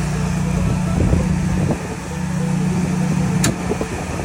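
Generac home standby generator engine running steadily after starting on a simulated utility outage. About three and a half seconds in comes a single sharp click: the automatic transfer switch moving the house over to generator power.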